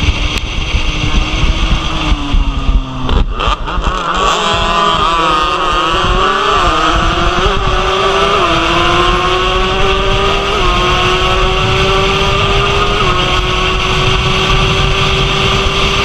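Racing motorcycle engine heard from onboard at high revs, with wind rushing over the microphone. About three seconds in the note sags and breaks into rapid crackling as the throttle is closed, then it picks up and accelerates hard, climbing through several gear changes, each marked by a brief dip in pitch.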